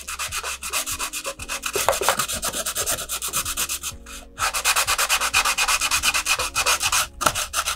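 Sandpaper rubbed by hand on the painted paper body tube of a model rocket at a fin root, sanding the paint off down to the paper. It goes in quick, short back-and-forth strokes, with a short break about four seconds in.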